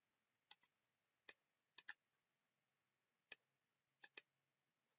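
About eight short, isolated clicks of a computer mouse and keyboard against near silence, some in quick pairs, as a value is typed in and clicked.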